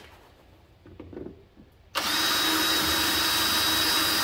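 Cordless drill starts suddenly about two seconds in and runs steadily while its bit is wobbled to widen a hole drilled in an RV's black water holding tank.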